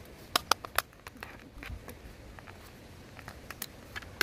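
Handling noise from a disassembled Huawei tablet's plastic frame and internals being handled and set down on a table: three sharp clicks within the first second, scattered light ticks after them, and another sharp click at the end.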